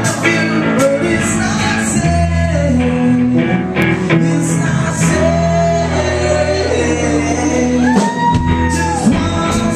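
Live rock band playing: drum kit with cymbals, electric guitar and a singer's voice carrying the melody.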